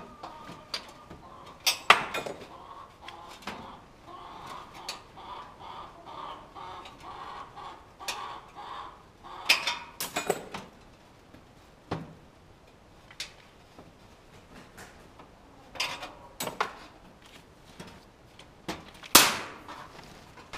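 Scattered sharp knocks and clicks, the loudest about two seconds in and near the end, with a pulsing, pitched sound repeating through the first half.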